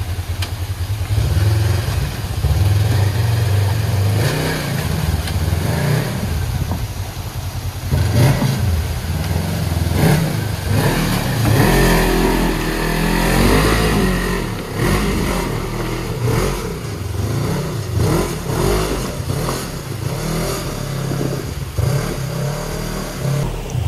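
Polaris RZR side-by-side engine running under load as it crawls up a rock ledge, the throttle opened and eased off again and again, with the revs rising and falling.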